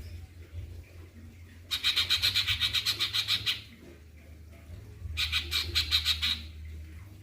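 Cucak cungkok songbird singing two bursts of rapid, evenly repeated harsh notes, about seven a second, each burst lasting one to two seconds with a pause between.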